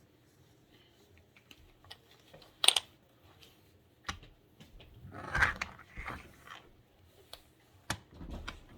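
Handling noises of a doll on toy roller skates being moved about: scattered light clicks and knocks, one sharp click a little under 3 seconds in, and a stretch of rustling and scraping around the middle.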